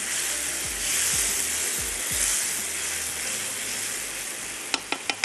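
Tomato, onion and chilli masala sizzling as it is fried in a non-stick frying pan and stirred with a silicone spatula, with a few sharp clicks near the end. This is the bhuna stage: the masala is being fried until its own water dries off.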